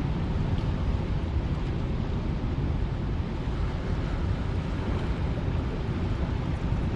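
Steady rushing noise of wind and water, heaviest in the low end, with no distinct events.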